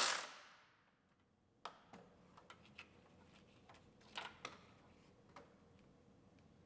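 A handful of faint, separate clicks and taps from hand tools working on a car's starter solenoid ground-wire bolt, the loudest about four seconds in.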